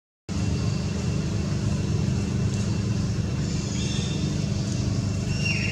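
A steady low rumble like a motor vehicle's engine running, starting after a brief silence. Faint high tones come about four seconds in, and a short falling high chirp near the end.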